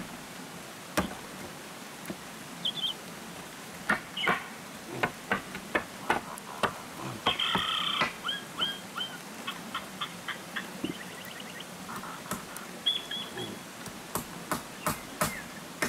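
Hammer knocking on a split-bamboo floor: scattered taps, then a quick run of strikes, about three a second, near the end. Birds chirp and call in between.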